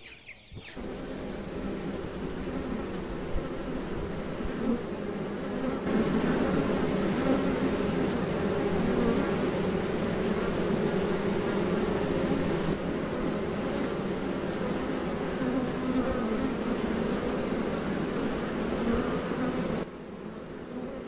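Western honeybees buzzing en masse on the comb: a dense, steady hum of many wings. It starts under a second in and drops sharply to a quieter level near the end.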